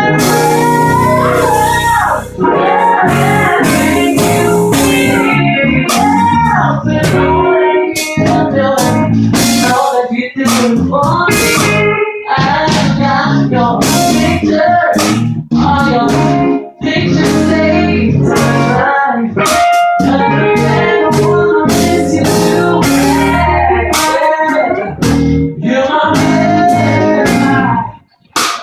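Live full band playing an instrumental passage of a soul/R&B song, guitar to the fore over bass and drums, with pitch bends in the lead line. The band cuts out briefly near the end.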